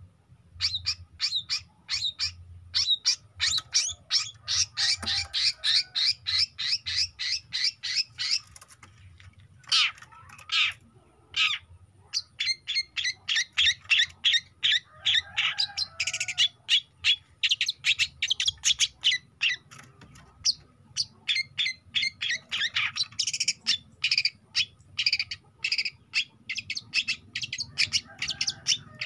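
Young long-tailed shrike singing a fast, chattering song: rapid runs of short, high repeated notes, broken by a few brief pauses.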